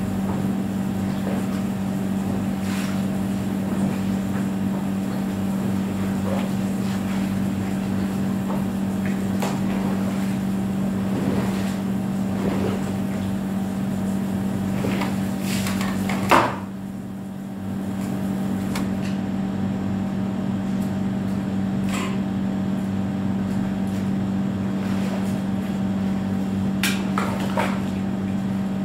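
Steady low motor-like hum with scattered knocks, clicks and crinkles as a plastic portable pool is handled and put together. A sharp knock comes about sixteen seconds in, and the hum dips briefly right after it.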